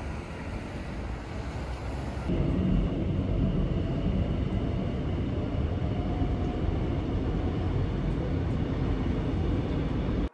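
Street traffic noise, then from about two seconds in the steady low rumble of a subway train running, heard from inside the carriage.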